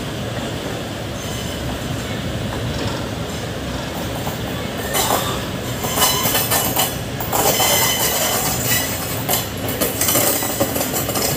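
Indian Railways passenger train running on the rails: steady wheel rumble and clatter heard from an open doorway, with a second passenger train passing on the next track. From about five seconds in, high-pitched wheel squeal and metallic clanking come and go as the trains run through a curve.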